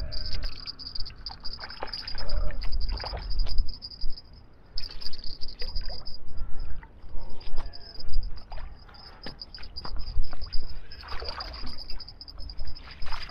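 Hooked fish splashing at the water's surface as it is reeled in, with irregular splashes and a burst of sloshing near the end as the landing net scoops it out.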